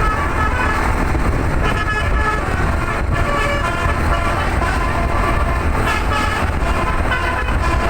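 A tour bus's telolet musical air horn plays a tune of short notes, the pitch changing every fraction of a second, over a steady low rumble of engine and road noise.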